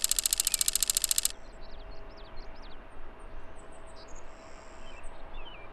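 A rapid, evenly pulsing buzz cuts off abruptly about a second in. After it, small birds give scattered short chirps that sweep up and down, over faint outdoor background.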